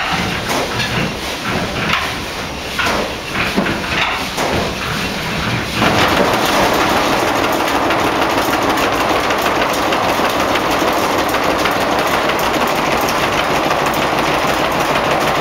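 Mill machinery driven by a 40 hp Blackstone oil engine running, with irregular knocks about twice a second. About six seconds in, the sound changes abruptly to a louder, steady noise with no beat.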